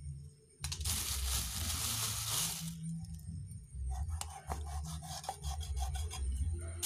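A large knife scraping the fibrous husk off a coconut: one long rasping scrape starting about half a second in, then a run of shorter scrapes and clicks.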